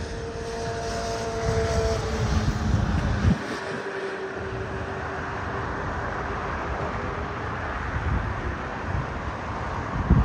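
Jet airliner engines running as an Airbus A320-family jet moves along the runway: a steady jet noise with a faint held tone. Low wind rumble on the microphone runs for the first three seconds and cuts off suddenly.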